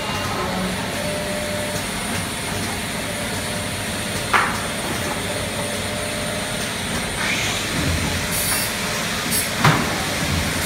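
Triangle nylon tea bag packing machine running with a steady mechanical noise, with a short, sharp louder sound about four seconds in and another near the end.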